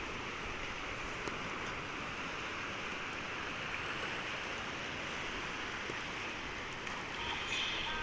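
Sea waves washing onto the shore, a steady, even wash of surf without distinct single crashes.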